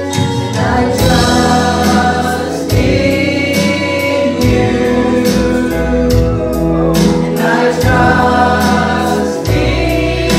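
Live gospel worship music: several voices singing together over a band with bass and a steady beat.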